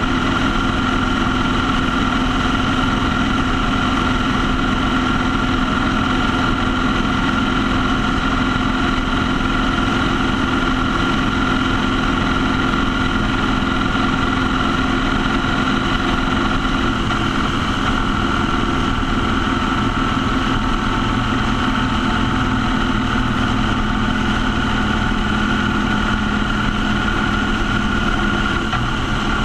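Motorcycle engine running at a steady cruise, mixed with wind and tyre-on-road noise. It makes a continuous drone whose pitch shifts slightly about halfway through.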